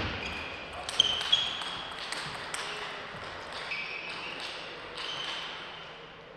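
Table tennis players' shoes squeaking briefly on the court floor, several times, between points. There are two sharp ball clicks about a second in, and the sounds echo in a large hall.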